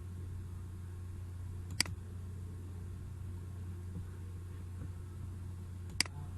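Two sharp computer mouse clicks about four seconds apart over a steady low electrical hum.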